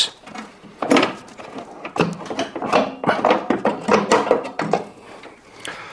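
Plastic anti-flood assembly being worked loose from a washing machine's base: irregular knocks, clunks and scrapes of plastic against the machine's frame.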